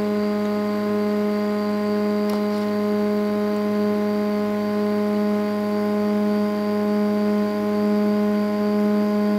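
Stepper motors of a Prusa i3 3D printer whining at one steady pitch while the printer homes its axes.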